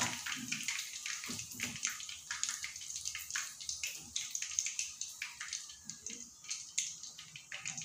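Battered chicken pieces deep-frying in hot oil in a stainless steel pan: a dense sizzle with many crackling pops, thinning and fading as the pieces are lifted out of the oil with tongs.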